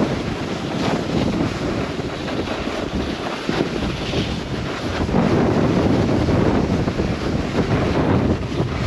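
Wind buffeting the microphone of a camera carried down a snowboard run, a dense, unsteady rumble and rush that gets a little louder about five seconds in.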